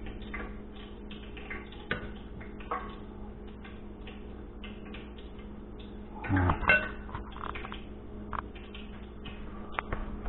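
A metal spoon clinking and scraping against a glass bowl as filling is scooped, in scattered small clicks with a louder clatter about six and a half seconds in, over a steady low hum.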